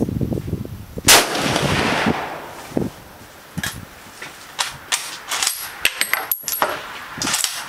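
A single shot from a Kar98k bolt-action rifle about a second in, its report echoing for about a second. It is followed by a string of sharp metallic clicks, the bolt being worked to chamber the next round.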